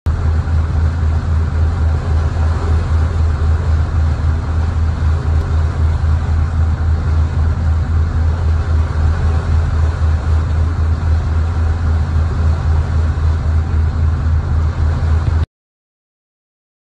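A boat's engine running steadily at cruising speed, a loud low drone mixed with the rush of wind and wake water; it cuts off suddenly near the end.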